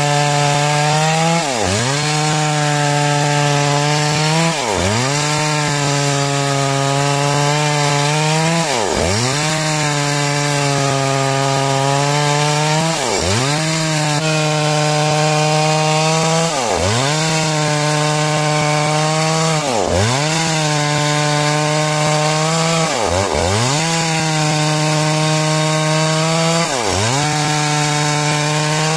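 Two-stroke chainsaw running at high revs while cutting through timber, its engine pitch dipping sharply and recovering about every three to four seconds as the chain bites into the wood.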